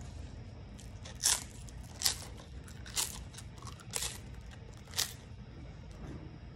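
Thin, crisp oblea wafer crunching as it is bitten and chewed: five sharp crunches about a second apart.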